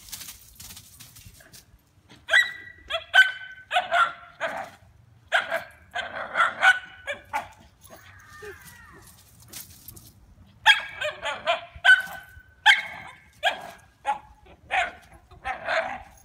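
A dog barking in quick, high-pitched yaps. The barks come in two rapid bouts with a pause of a few seconds between them.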